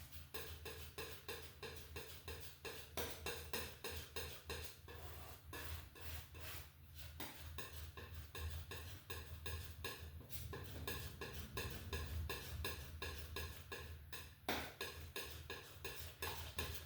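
Oil paint being worked on the palette with a painting tool: quick, uneven clicks, taps and scrapes, several a second, over a low steady hum.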